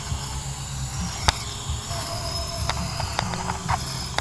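Cordless electric string trimmer, a Makita replica, running with a steady high whine while cutting grass, with scattered sharp ticks and one loud crack about a second in.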